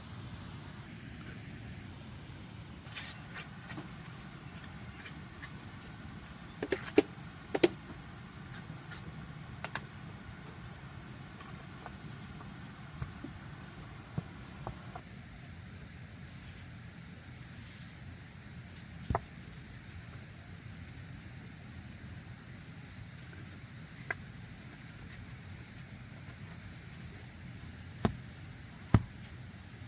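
About ten sharp knocks at irregular intervals, the loudest a close pair about seven seconds in and two more near the end. Under them runs a steady low hum and a faint steady high whine.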